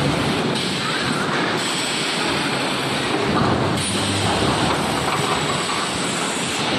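3D EPS wall-panel wire-mesh welding machine running, a steady dense mechanical clatter and hiss that holds level throughout.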